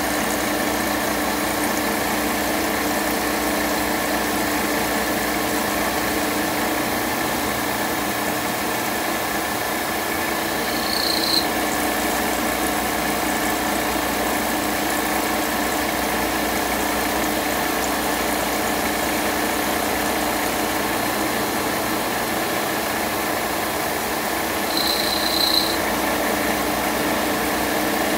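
Machining centre's end mill cutting slots in an aluminium part under flood coolant: a steady, loud machining drone with several held tones. Two brief high squeals come through, once near the middle and once near the end.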